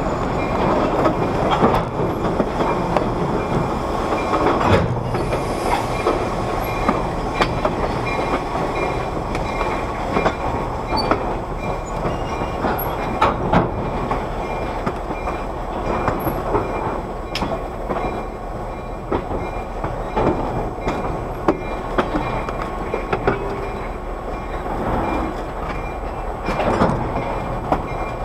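Caboose of a slow-moving passenger train rolling over yard track: a steady rumble of wheels on rail, broken by irregular clanks and knocks from the trucks and couplers.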